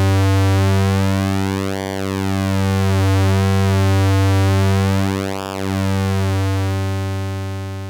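Moog Werkstatt-01 analog oscillator holding one low pulse-wave note while its pulse width knob is swept back and forth, so the tone's colour shifts between hollow and thin and nasal. The note fades away near the end.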